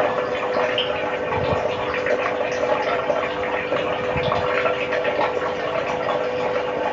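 Steady outdoor background noise: an even crackling hiss with a constant low hum underneath.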